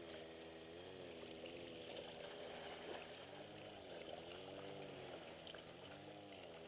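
Small sea waves lapping and splashing softly against shoreline rocks, faint, with a swishing rise and fall every second or two.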